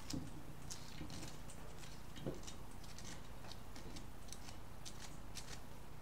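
Sandpaper rubbing the end of a thin enamelled copper winding wire from a washing-machine motor stator: faint, irregular scratching, to strip the enamel so the broken winding can be rejoined. There is a soft knock right away and another about two seconds in.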